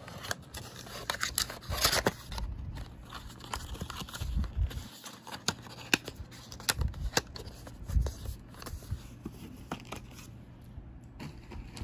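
Small cardboard product boxes and packaging being handled: a run of sharp clicks and taps mixed with rustling and scraping.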